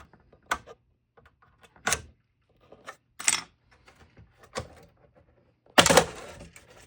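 Scattered clicks and knocks from the plastic and metal parts of an opened original Xbox 360 console being handled, with a louder, longer clatter near the end.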